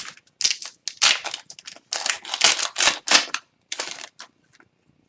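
Trading cards and their foil pack wrapper being handled: a quick run of sharp crinkles, snaps and flicks that thins out about four seconds in.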